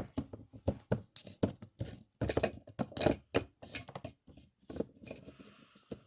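Irregular clicking, tapping and scraping of small hard plastic toy figures and accessories being handled and set down, with a few short scrapes about two and three seconds in.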